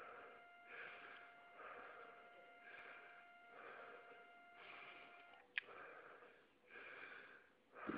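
Faint, quick rhythmic breathing, a little under one breath a second, with a faint steady tone that stops at a sharp click about two-thirds of the way through.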